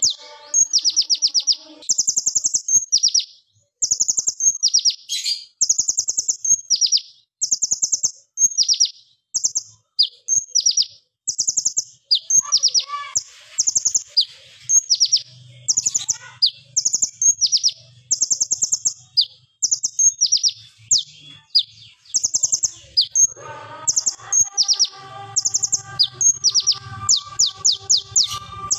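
Male kolibri ninja (purple-throated sunbird) singing loud, sharp bursts of high, rapid-fire trilled notes, phrase after phrase with short gaps: the machine-gun 'tembakan' song that keepers call AK47 shots.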